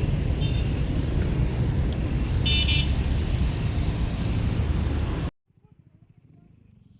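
Steady deep rumble of road traffic with a short, high-pitched horn toot about two and a half seconds in. The sound cuts off suddenly a little after five seconds, leaving only faint background.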